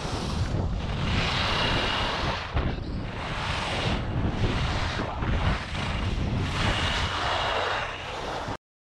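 Skis carving and scraping over hard-packed piste snow, a hiss that swells and fades several times with the turns, over a low rumble of wind on the action camera's microphone. It cuts off suddenly near the end.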